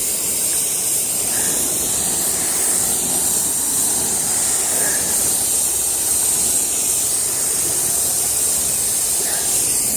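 Steady hiss of a high-pressure spray striking a cedar fence, cleaning and staining the wood in one pass.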